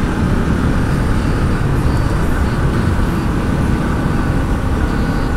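Bajaj Pulsar NS200's single-cylinder engine running steadily while riding on the road, under a steady rush of wind noise on the microphone.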